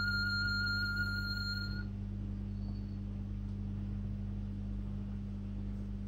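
Casio VL-series pocket synthesizer holding one high electronic note, which cuts off about two seconds in. A steady low hum carries on underneath.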